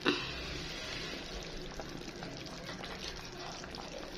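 Pot of matoke (green bananas) stewing in tomato broth, simmering with a steady bubbling. One sharp knock comes just after the start.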